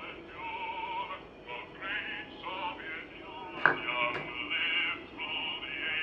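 A song with singing playing from a phone's speaker. About three and a half seconds in there is a sharp knock, the loudest sound, and a lighter click half a second later.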